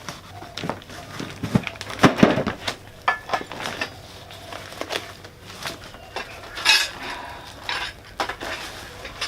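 Loose metal fittings being handled: irregular clinks and knocks of steel parts against each other, clustered a couple of seconds in, with a brief rustle or scrape about two-thirds of the way through.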